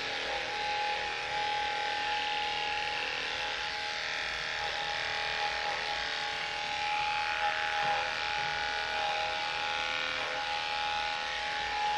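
Electric dog grooming clippers running with a steady hum as they shave a dog's coat.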